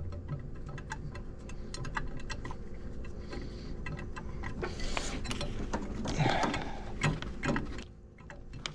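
Light, irregular metallic clicks and rattles, a few a second, with a louder scraping rustle around the middle: hand tools and the VVT solenoid bolts being worked in by hand in a tight engine bay.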